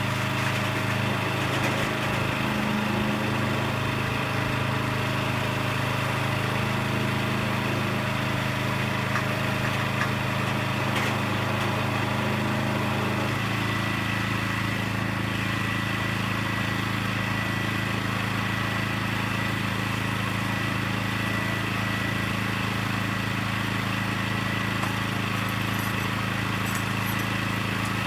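Small gasoline engine mounted on a portable truck scale's gooseneck, running steadily; its note shifts slightly about halfway through.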